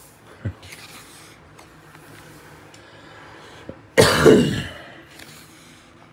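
A single cough about four seconds in, the loudest sound. Before it there is faint rustling of the pages of a hardcover art book as they are turned by hand.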